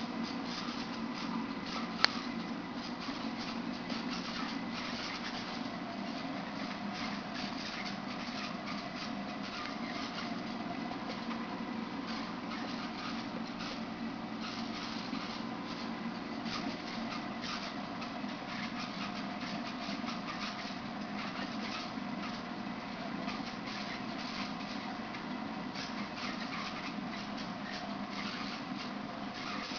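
Aquarium circulation pump and tank equipment running: a steady low hum with hiss and a faint crackle, broken by a single sharp click about two seconds in.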